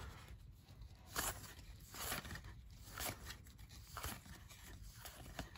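Faint, soft papery swishes and ticks of baseball cards being slid one by one off a stack held in the hand, about once a second.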